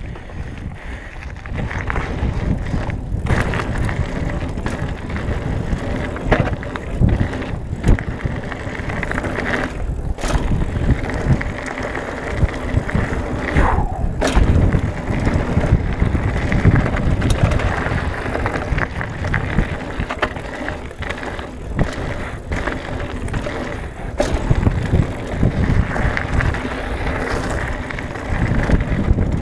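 Trek Marlin 6 hardtail mountain bike rolling down a gravel trail: a continuous rumble of tyres on loose gravel, with many short rattles and knocks from the bike over bumps.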